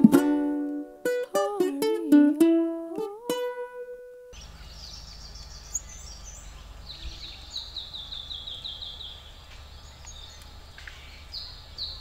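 A short plucked-string tune that ends about four seconds in. Then two quick runs of short, high bird chirps, several a second, over a faint low hum.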